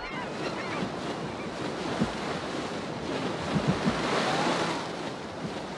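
Rushing white water of river rapids: a steady roar of noise that swells a little from about three to five seconds in.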